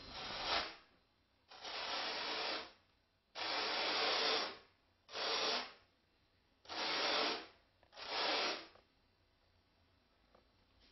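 36-grit sandpaper on a paint stir stick rasping over a foam plug by hand, in six separate strokes with short pauses between them.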